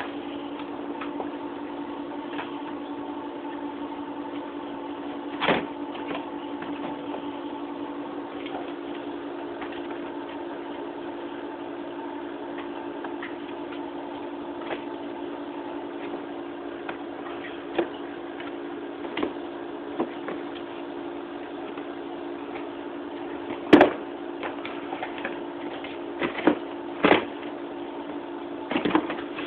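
A steady low hum throughout, with scattered knocks and clatters of toys shifting in a plastic bin as a small dog roots among them; the sharpest knock comes about two thirds of the way in, and several more follow close together near the end.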